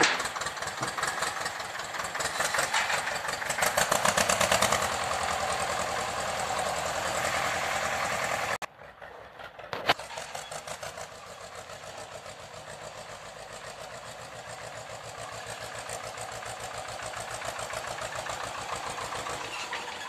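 Tractor engine running with a fast, even firing beat, louder around four seconds in. It cuts out suddenly near the middle, and a second later the engine runs on more quietly and steadily.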